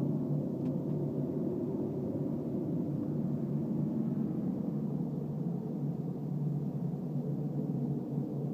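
A steady low roar, like a jet engine running, from a source that cannot be identified.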